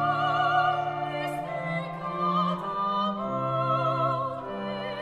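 Live acoustic music: a high voice singing long notes with strong vibrato over long held upright double bass notes, with a mandolin accompanying.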